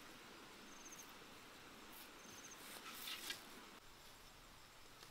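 Faint cricket chirping: two short, rapid high chirps about a second and a half apart. Around the middle comes a brief rustle and crackle of grass and dry leaves, the loudest sound here.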